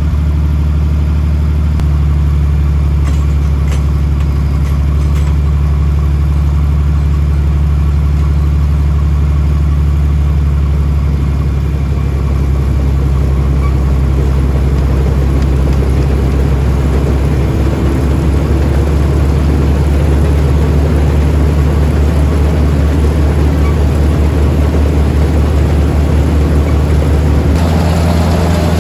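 John Deere 55 combine running steadily. From about twelve seconds in, the separator is engaged and the sound gets busier: belts, pulleys and the threshing and cleaning parts run under the engine, a test run of the separator.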